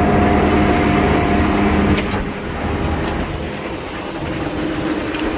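Gehl 95XD grinder-mixer running, a loud steady mechanical drone with a low rumble. There is a sharp knock about two seconds in, after which the sound drops slightly.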